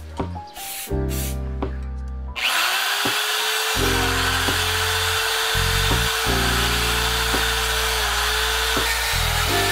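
Background lo-fi music, then, about two and a half seconds in, an electric drill with a wire cup brush spins up and runs steadily, scrubbing grime and rust off a bicycle chainring. Its pitch sags a little now and then as the brush is pressed onto the ring. The music continues underneath.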